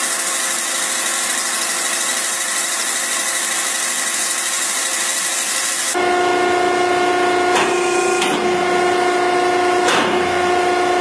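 Air compressor at work: a steady hiss of rushing air for about six seconds, then a steady whine with a few clicks.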